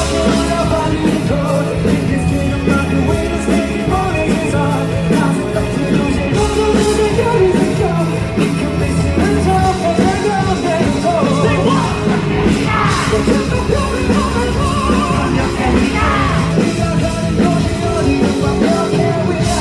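Live rock band playing at full volume, with drums, bass and electric guitar and a voice singing or yelling over it; gliding pitched lines about two-thirds of the way through.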